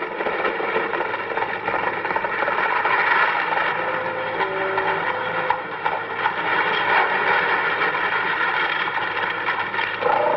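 Horse-drawn buggy travelling: steady hoofbeats with the clatter of the wheels and harness.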